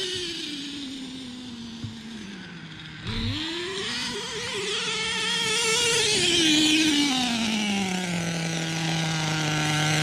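Small two-stroke nitro engine of a Redcat Earthquake 3.5 RC truck running during break-in: its revs sink, climb again about three seconds in, then fall back to a steady idle from about eight seconds in.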